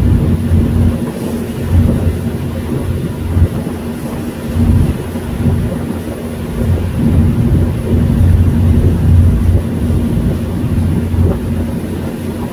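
Boat engine running steadily under way, a loud low rumble with a constant hum that surges and eases irregularly.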